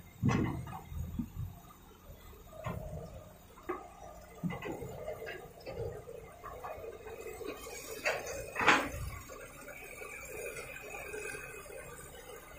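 Excavator loading soil into a dump truck: irregular thuds and knocks of dirt and clods dropping into the steel truck bed, the loudest about two-thirds of the way through, over a low, uneven engine hum.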